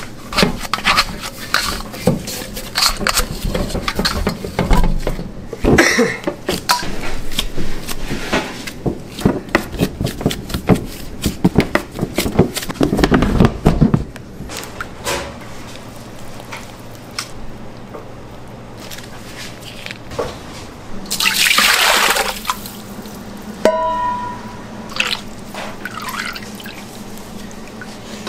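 Bakery kitchen work: clatter and knocks of utensils and trays through the first half, then quieter, with a short hiss a little over 20 seconds in and a brief beep soon after.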